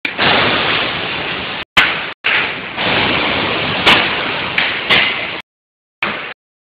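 Production-line machinery running: a steady noisy rush broken by sharp knocks and clanks. The sound cuts out abruptly into silence a few times.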